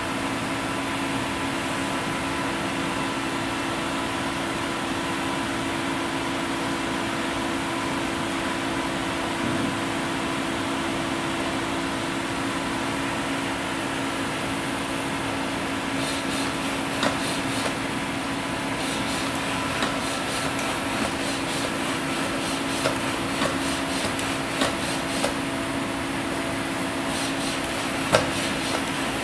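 DLR TORO torque-controlled humanoid robot running: its powered joint drives give a steady hum with two low tones. From about halfway, scattered clicks and knocks come as the robot steps and turns.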